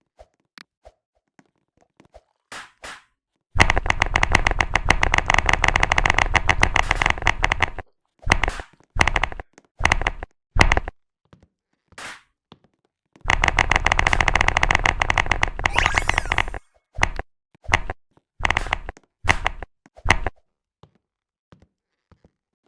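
Computer keyboard typing: two long runs of fast, dense key clicks, each lasting several seconds, separated by scattered single keystrokes and short flurries.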